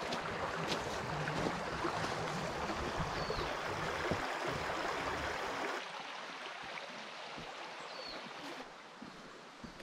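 Steady rushing of a creek's flowing water. It drops in level about six seconds in and again near the end.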